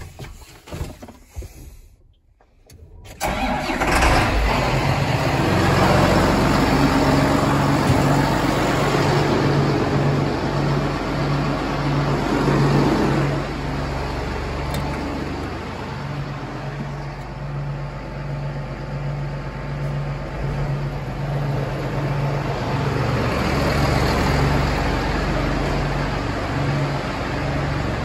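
A John Deere tractor's diesel engine starting about three seconds in and then running steadily at idle, a little quieter from about thirteen seconds in. A few faint knocks come before it starts.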